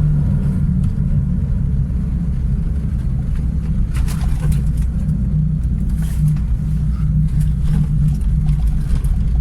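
Lada Niva driving over rough ground: a steady low engine and road rumble with occasional knocks from the rear suspension. The owner puts the knocking down to a torn rear axle link rod that has let the axle shift back and strike a bolt.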